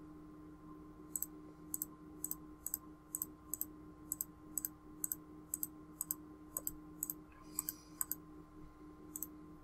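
Computer mouse button clicking at a regular pace of about two short, sharp clicks a second.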